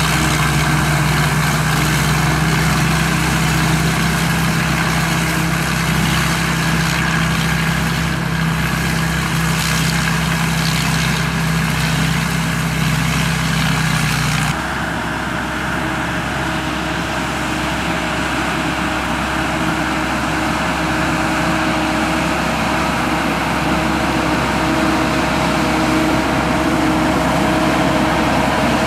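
SAK KM-D combine harvester running steadily, its 260-horsepower turbocharged engine and machinery giving a constant mechanical drone. About halfway through, the sound changes suddenly, becoming slightly quieter and duller.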